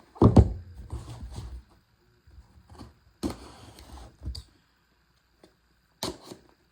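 A shipping package being handled and opened by hand: a loud thump just after the start, then scattered clicks and knocks of packaging with short quiet gaps.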